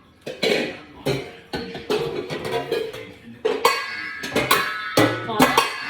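Background music with a beat and strummed or plucked string-instrument sounds.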